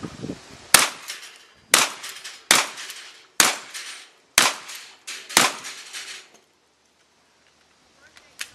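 Six gunshots from a competitor's firearm, fired about one a second, each sharp crack trailing off in an echo.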